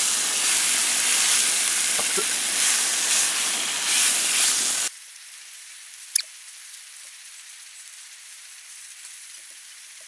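Roast beef searing in a hot skillet, sizzling loudly with a nice sound. About five seconds in the sizzle drops off abruptly to a faint high hiss, with one sharp click about a second later.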